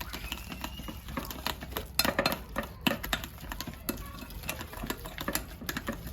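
A utensil clicking, knocking and scraping against a bowl in quick, irregular strokes while cake batter is mixed.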